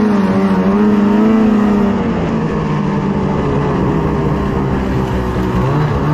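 Ski-Doo snowmobile engine running under way at a steady cruise, a loud, even engine note whose pitch drops briefly near the end.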